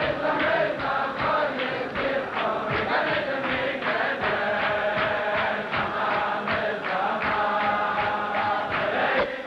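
A crowd of men singing a Chasidic niggun together in a steady rhythm.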